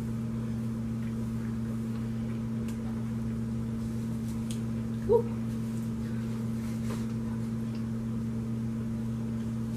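Steady low electrical hum with a few faint clicks from eating, and a brief voice sound about five seconds in.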